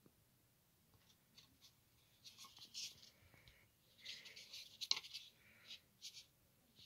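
Faint scratchy handling noise from a hand turning a plastic mini football helmet, skin and fingers rubbing and scraping on the shell and facemask in short bursts, with one sharp click about five seconds in.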